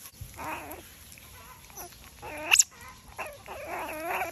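Young otter giving high, whining squeals while feeding on raw fish, in several runs with wavering pitch; one call about two and a half seconds in sweeps sharply upward and is the loudest.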